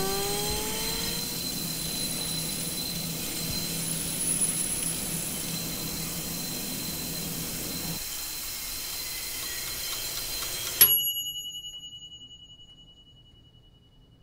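Tap water running into a bathroom sink, a steady hiss after a brief rising tone at the start. About eleven seconds in it stops dead at a single bright bell-like ding, which rings on and fades away.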